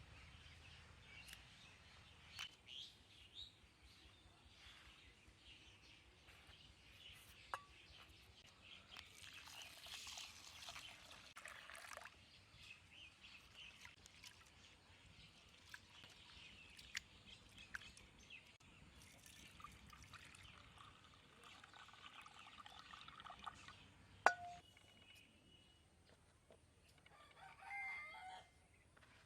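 Faint village background with a rooster crowing, most clearly near the end, and scattered small clicks and one sharper knock.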